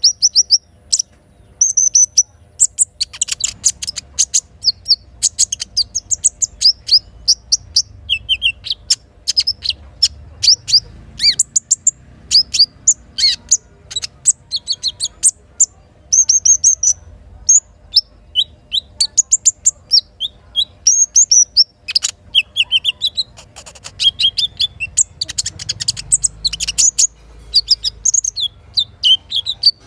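Little spiderhunter (sogok ontong) song: a continuous run of rapid, high, sharp chirps and short trills.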